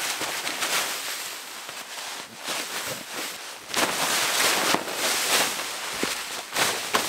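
Tarp fabric rustling and flapping as it is lifted and shaken free of snow, getting louder about four seconds in. Before that, quieter scraping and crunching of snowy ground as a wooden tent stake is worked loose.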